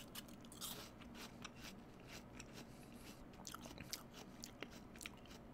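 A person chewing a bite of SugarBee apple: faint, crisp crunching in many small, irregular crunches from the very firm, crunchy flesh.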